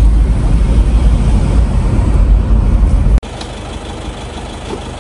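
Vehicle engine running with a loud low rumble that cuts off abruptly about three seconds in, leaving a quieter steady hum.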